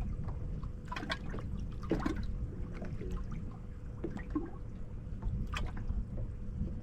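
Water trickling and splashing in short, scattered strokes, over a steady low wind rumble on the microphone.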